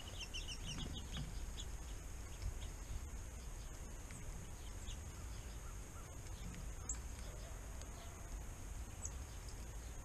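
Small bird calling: a quick run of about eight high, short chirping notes in the first second, then a few scattered faint chirps, over a low wind rumble on the microphone.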